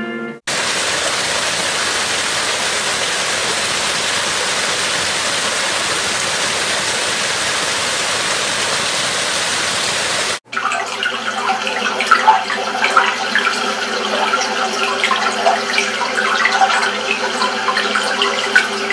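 Rushing stream: a steady, even rush of white water over rocks for about ten seconds, then a sudden cut to a gentler brook trickling and gurgling, full of small splashes.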